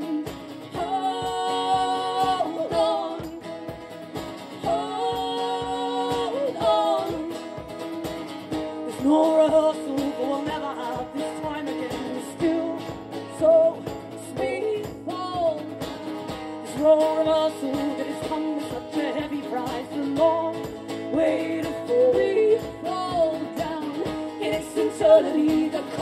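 Live band music: singing, with some long held notes, over a steady beat.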